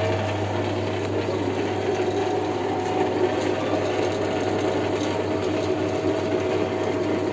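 Westco MJ-3435 14-inch bandsaw running on a power-on test, its 370 W electric motor and blade giving a steady hum.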